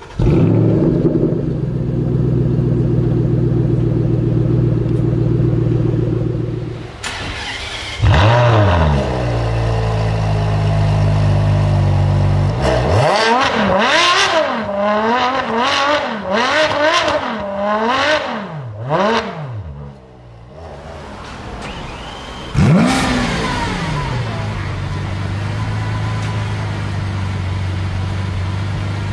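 A string of supercar engines starting. A Shelby Mustang GT500's V8 catches and idles steadily. Another engine catches with a flare about eight seconds in. A Ferrari 599 GTO's V12 is then blipped through several quick revs. Near the end a Lamborghini Aventador's V12 fires with a loud flare and settles to a steady idle.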